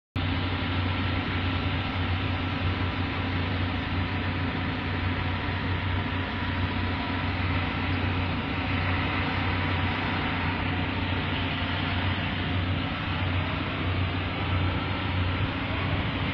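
Steady low engine drone with an even hiss over it, unchanging throughout.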